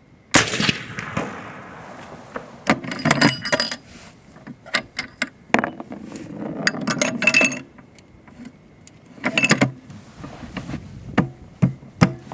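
Suppressed Anzio 20mm rifle firing one subsonic round about a third of a second in: a sharp report with a short fading tail. After it come repeated metallic clicks, clacks and clinks as the bolt is worked and a fresh 20mm cartridge is handled and loaded.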